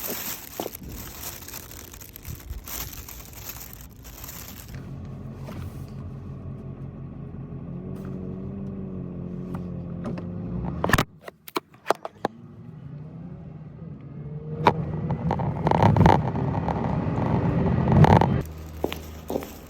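Car engine running with its pitch slowly rising, as when pulling away, heard in short edited stretches with a few clicks between them.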